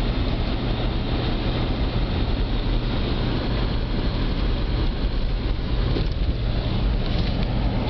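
Steady road noise inside a moving car's cabin: a low, even rumble of engine and tyres rolling over a snow-covered street.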